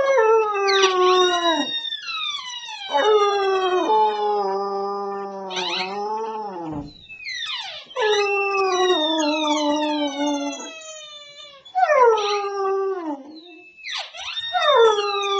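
Rubber monkey squeaky toy squeezed underfoot, giving five long squeals that jump up and then slide down in pitch.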